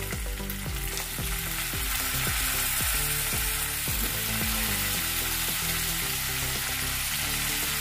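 Whole shrimp frying in hot melted margarine with browned garlic and onion, a steady sizzle as they are added to the pan by hand.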